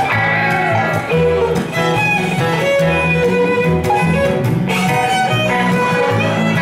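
A fiddle playing a tune, bowed notes following one another quickly, over a rhythmic low bass line.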